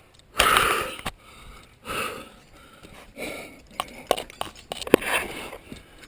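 A climber breathing hard with effort while forcing his way up a rock crack: about four loud breaths or grunts, the loudest about half a second in, with a few sharp clicks and knocks around four to five seconds in.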